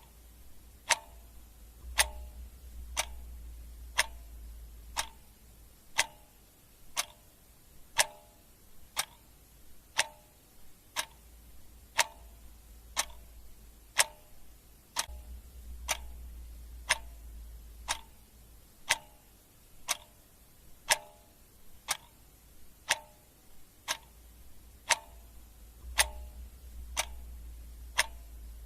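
Clock ticking steadily, one tick each second, with alternating stronger and softer strokes as a tick-tock.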